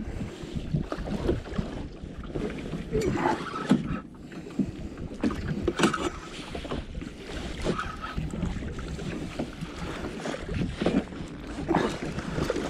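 Small waves lapping and slapping against a boat's hull in irregular splashes, over a steady low rumble of wind on the microphone.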